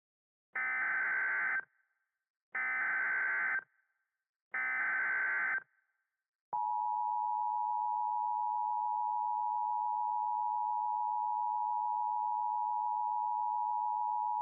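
Emergency Alert System SAME header: three identical screeching data bursts, each about a second long. About six seconds in, the EAS attention signal follows, a steady two-note alert tone. This sequence marks the start of a new emergency alert.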